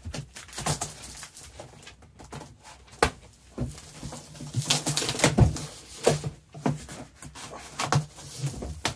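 A knife slicing the packing tape along the seams of a large cardboard box, with the cardboard flaps rustling and scraping and scattered knocks as the box is handled.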